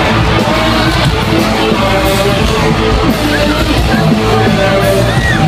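Live rock band playing loud, with electric guitar and singing, recorded from inside the crowd on a phone.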